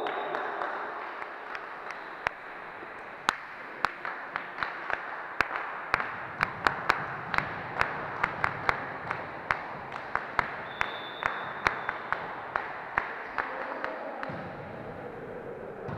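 Hand clapping, about three sharp claps a second, starting about three seconds in and fading out near the end, over a low hum of crowd noise.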